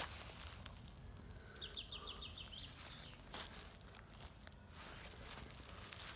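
Faint outdoor ambience with a low rumble and a few soft clicks or crunches. About a second in, a bird gives a faint high note, then a quick trill of about seven short notes a second.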